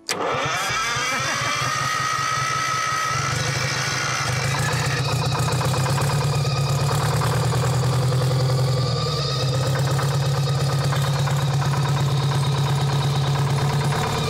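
Two-stroke Detroit Diesel engine of a motor grader starting on the starter, revived after sitting seized for seven years. A rising whine over the first few seconds gives way to a steady, even running note.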